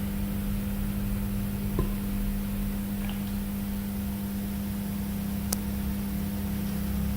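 Steady low electrical hum with a faint hiss, with three faint small clicks at roughly one-and-a-half-second intervals, about two, three and five and a half seconds in.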